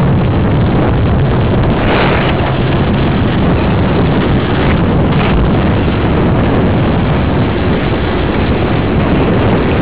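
Wind buffeting a small action camera's microphone while a mountain bike is ridden, a loud steady rush with a few brief louder gusts.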